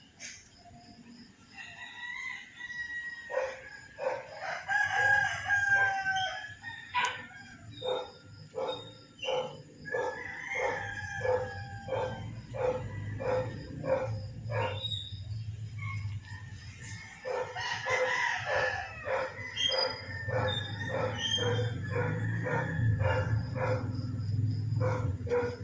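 Roosters crowing in long drawn-out calls, with chickens clucking in runs of short repeated calls about two a second. A low steady hum runs underneath from about four seconds in.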